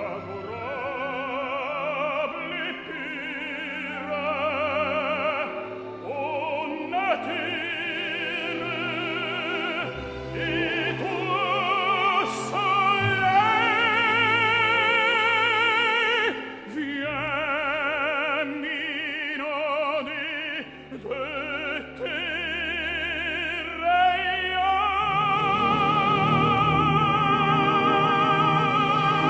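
Operatic tenor singing in French with an orchestra, the voice rising into held notes with a wide vibrato and ending on a long sustained note.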